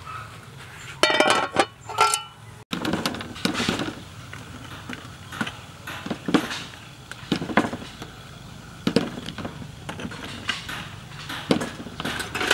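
A metal slotted spoon clinking against an aluminium cooking pot, then a string of short knocks, about one a second, as hard round green fruits are handled and set down in a plastic colander.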